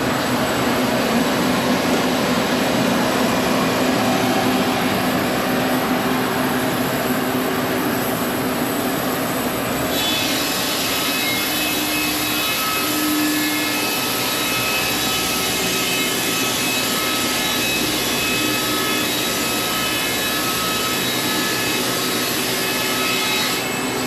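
Sawmill running and cutting through an antique heart pine beam, a loud steady machine noise. About ten seconds in the sound shifts, and several steady high whining tones come in.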